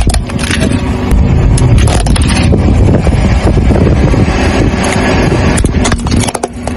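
Car tyre rolling slowly over gritty asphalt with a loud low rumble, crushing small plastic objects with scattered sharp cracks and snaps.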